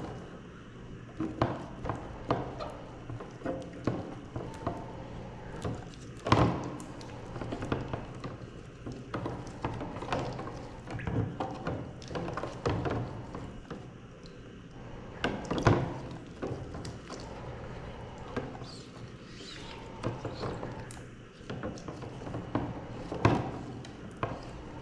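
Irregular knocks and taps, a few louder thunks among them, over a steady low hum.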